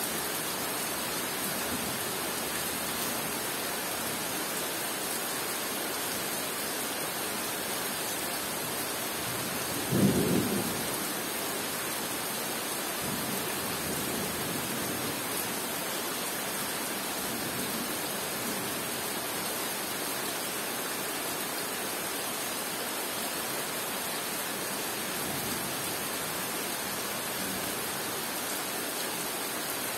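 Steady rain falling on forest leaves, with one clap of thunder about a third of the way in that rumbles away over a second or two.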